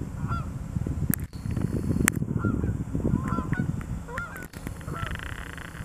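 Canada geese honking in flight, a string of short honks about once a second over a low rumble.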